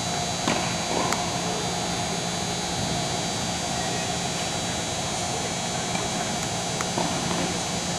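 Steady hum and hiss of an indoor tennis hall, broken by a few sharp knocks of a tennis ball, two in the first second or so and another pair about seven seconds in.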